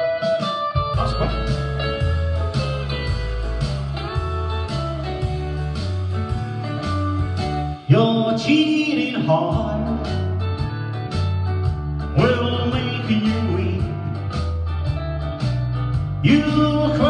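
Male singer singing a country-blues style song into a handheld microphone over a recorded backing track of guitar and a bass line that steps note by note.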